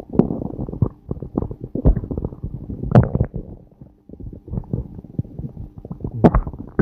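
A person's stomach and intestines growling and gurgling, a string of irregular wet gurgles and crackling pops, with a brief lull about four seconds in.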